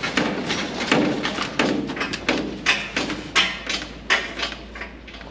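Heavy machinery moving a flex header: a run of loud clunks and thumps, one or two a second, over a steady low hum.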